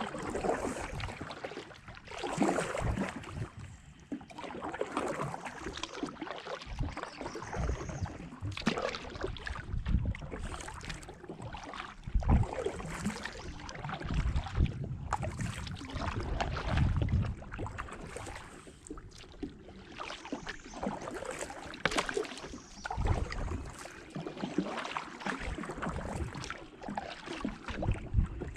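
Kayak paddling: irregular paddle strokes swishing and splashing in the water, with occasional low thumps.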